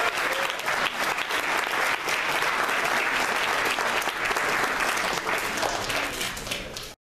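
Audience applauding, many hands clapping steadily, cutting off suddenly near the end.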